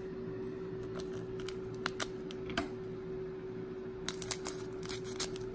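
Light, scattered clicks and crinkles of a foil Pokémon booster pack and trading cards being handled, with a quick run of clicks about four seconds in. A steady hum runs underneath.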